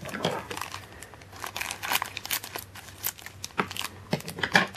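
Thin clear plastic bag crinkling and rustling in a hand, in irregular short crackles.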